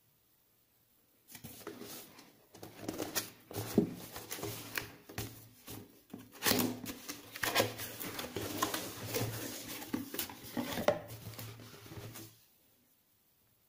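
Cardboard box being handled and opened by hand: an irregular run of rustles, scrapes and sharp taps of cardboard, starting about a second in and stopping near the end.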